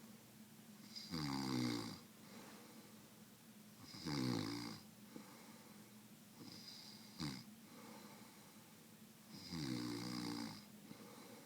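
A person snoring: three long snores about three seconds apart and a brief one between the second and third. A faint high whistle comes between some of the snores.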